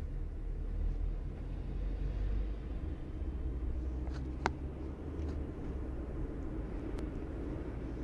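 Steady low rumble of road and engine noise heard from inside a moving car, with one sharp click about halfway through and a fainter tick near the end.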